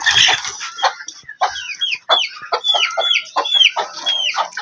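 Chickens calling in alarm while being chased: a rapid series of short, high calls that fall sharply in pitch, one after another.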